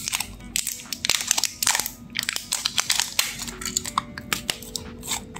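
Thin clear plastic seal on a small plastic e-liquid bottle crinkling and crackling as it is peeled off and the bottle is turned in the hands, in a run of irregular crackles and clicks.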